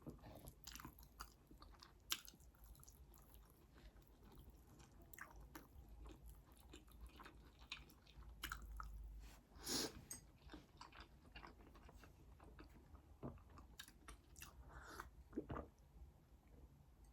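Close-miked chewing: soft, irregular mouth clicks and smacks as food is chewed, with a louder bite about ten seconds in.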